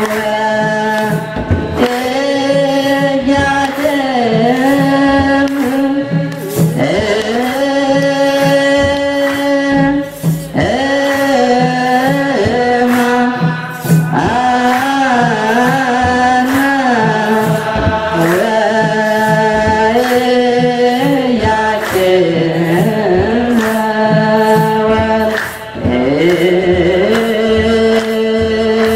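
Ethiopian Orthodox wereb chant: a group of men singing together in long, sliding melodic lines, over a steady beat of sharp strikes.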